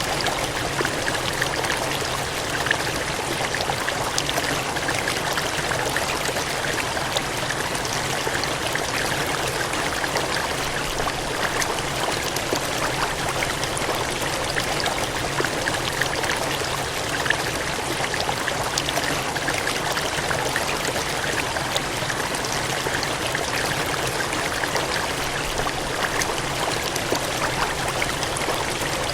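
Cascading water gushing steadily, a continuous rushing with many small splashes and droplet ticks through it.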